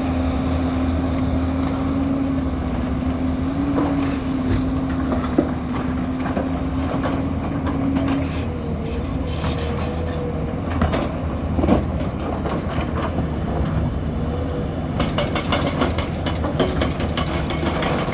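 Heavy construction machinery running steadily, with a held whine that shifts pitch about eight seconds in and scattered knocks. Near the end a rapid, regular hammering begins, like a hydraulic rock breaker starting to break stone.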